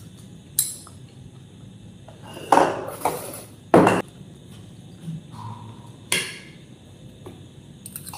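Tableware clatter: sharp knocks and clinks of a drinking glass and a spoon against dishes, with the loudest bumps clustered in the middle.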